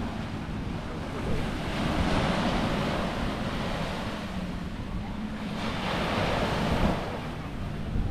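Small sea waves washing onto the beach, the surf noise swelling and ebbing in slow surges, with wind rumbling on the microphone.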